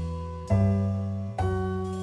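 Background music: slow sustained chords on a keyboard instrument. A new chord is struck twice, each ringing on and slowly fading.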